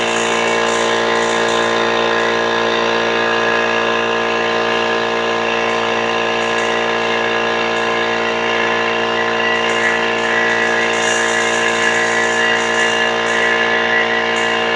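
Harbor Freight 21-gallon oil-lubricated air compressor running steadily as it fills its tank during the break-in run: a loud, even drone of several steady pitches.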